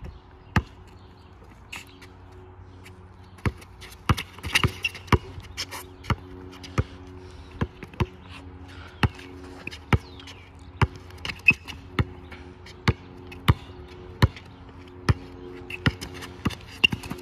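A basketball being dribbled on a hard court: a series of sharp single bounces, irregular in spacing, about one to two a second.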